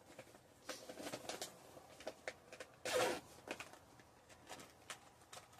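Light clicks, taps and rustles of small objects being handled on a tabletop, with one louder brief rustle or scrape about three seconds in.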